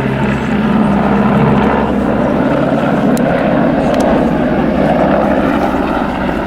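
Royal Navy Merlin (AgustaWestland AW101) helicopter in flight, with steady rotor and turbine engine noise.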